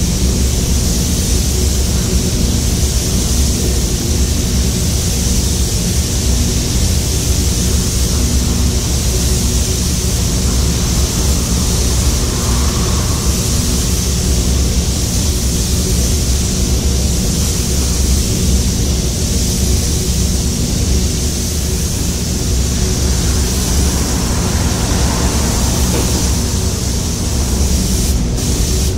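Steady hiss of compressed-air spray guns spraying a glass coating, over a constant low rumble of spray-booth air handling.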